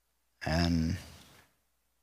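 A man's voice saying one word, "And", about half a second in; otherwise near silence.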